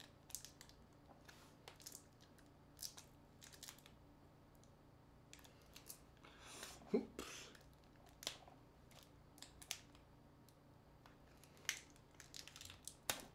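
Faint scattered clicks and rustles of fingers working an opened smartphone, tugging at the plastic pull tabs of its glued-in battery, with a longer tearing rustle about halfway through.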